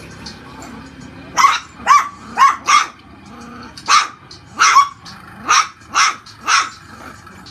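Puppy barking in high-pitched yaps: about nine short barks in quick runs, starting about a second and a half in.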